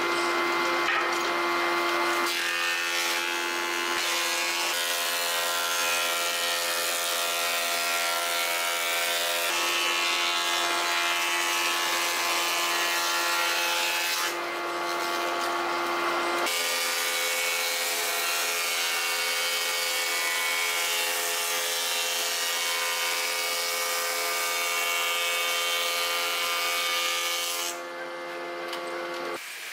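Strength-brand wide thickness planer running, its cutter head shaving boards fed through it: a steady motor whine under the hiss of cutting. The cutting noise eases briefly about halfway through and again near the end.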